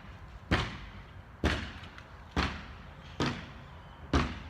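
Steady hammer strikes on a building site, about one blow a second, each sharp with a brief ring-out.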